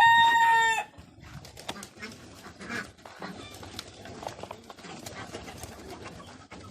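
A rooster's crow ends on a long held note about a second in, followed by quieter scattered bird calls and small knocks from the poultry.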